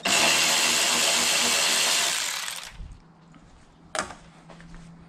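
Cordless power tool running steadily for about two and a half seconds and then fading out as it backs out a bolt on the BMW E92 335i's front strut brace. About four seconds in there is a single short knock.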